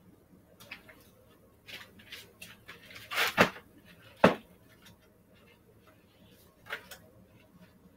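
Rustling and light clatter of papers and objects being handled and shifted on a wooden shelf, with two louder knocks a little past three and four seconds in.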